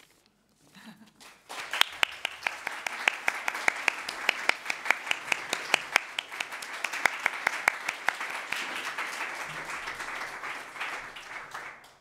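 Audience applauding, a dense patter of many hands clapping that starts about a second in and fades out near the end.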